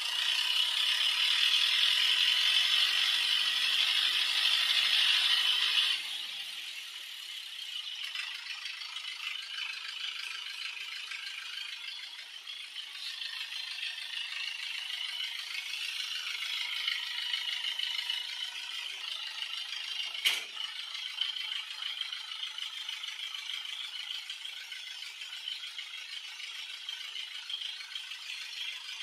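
Mahindra Yuvo Tech Plus 585 DI tractor's diesel engine idling with a steady clattering rattle. It is loudest for the first six seconds, then drops to a lower level, with a single sharp knock about twenty seconds in.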